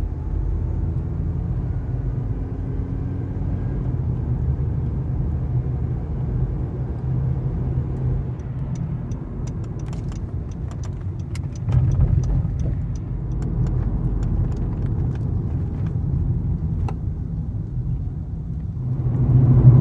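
Car driving, with a steady engine and road rumble heard from inside the cabin. Scattered light clicks and rattles come in about halfway through.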